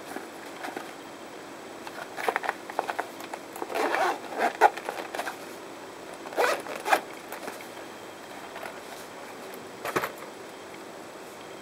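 Zipper of a molded airfoam game-controller pouch being run along its curved edge in several short rasping bursts, with handling of the case. A single short knock near the end.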